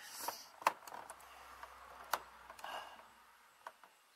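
A few light metallic clicks and taps of hand tools being picked up and handled, with the worker's breathing between them.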